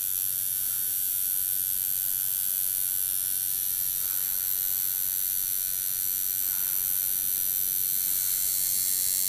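Coil tattoo machine buzzing steadily as it runs.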